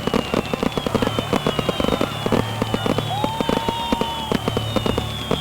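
Fireworks going off in a dense run of quick pops and crackles, over and over, with high whistles that each slide down in pitch.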